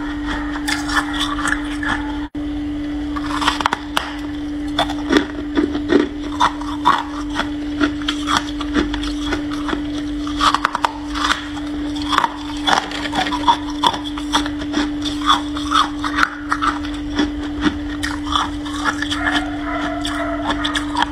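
Freezer frost crunching and crackling in quick, irregular clicks, over a steady low hum.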